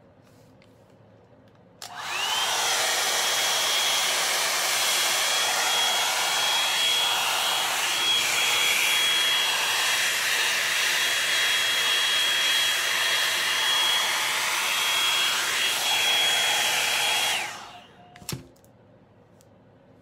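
Revlon One-Step Volumizer hot-air brush switched on about two seconds in: its motor spins up with a rising whine and runs with a steady rush of air and a high whine. Near the end it is switched off and winds down, followed by a single click.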